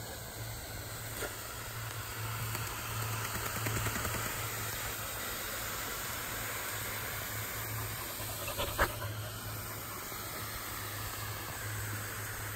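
Dogs panting over the steady hiss of a lawn sprinkler's water spray. A single sharp click about nine seconds in.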